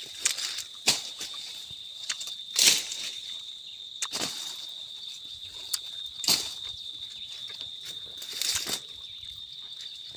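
Steady high-pitched insect drone, like crickets, under irregular rustling and crackling strokes of leaves or vegetation, loudest about two and a half seconds in.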